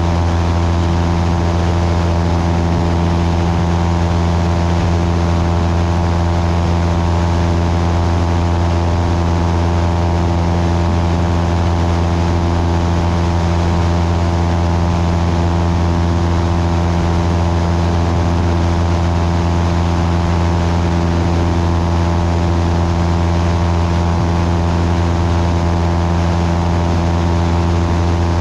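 Cessna 172's piston engine and propeller droning steadily in flight: a strong low hum with an even hiss over it.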